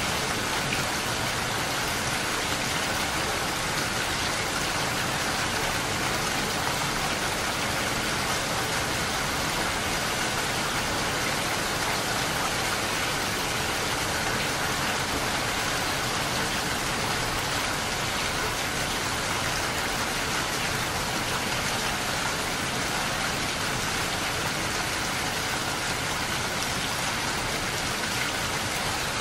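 Steady rain falling on a window pane, a dense, even pitter-patter that does not change.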